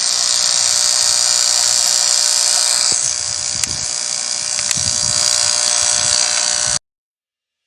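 Noisy aquarium air pump running with a loud, steady buzz and hiss; it cuts off suddenly near the end.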